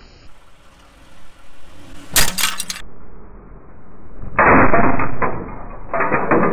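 Car tyre rolling onto a glass tumbler, the glass cracking and shattering into crunching shards in two loud stretches, about four and six seconds in, after a brief sharp crunch about two seconds in.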